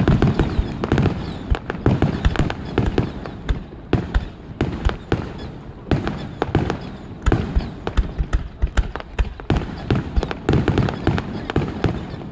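Fireworks display: a rapid, unbroken barrage of aerial shell bursts and crackles, heaviest about ten seconds in.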